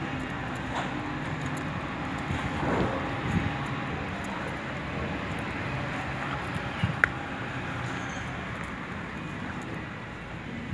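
Steady low hum of road traffic, with a few faint clicks and scuffs and one brief high chirp about seven seconds in.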